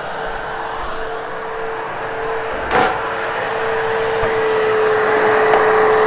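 Vacuum cleaner running over carpet, with a steady motor whine under a rushing hiss. A single sharp knock comes about three seconds in, and the sound grows a little louder in the second half.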